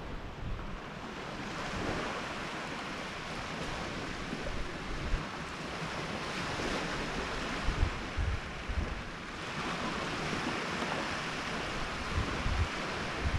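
Wind blowing across the microphone on an open shore: low, uneven gusty rumbles under a steady rushing hiss that swells and eases every few seconds.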